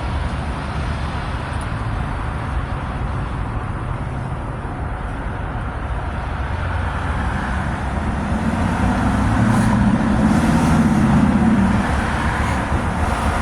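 Steady low rumble of motor vehicle noise. A low droning hum swells up about eight seconds in and fades out again near twelve seconds.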